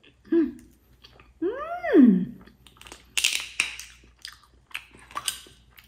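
Eating a sugar-dusted donut, with a long humming 'mmm' that rises and then falls in pitch about a second and a half in. About three seconds in, a soju bottle's screw cap is twisted open with a short crackle, followed by a few sharp clicks.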